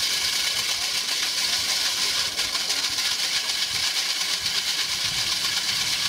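Hydraulic core drill with a large diamond core bit running and cutting into a concrete wall: a steady, hissing grind that does not let up.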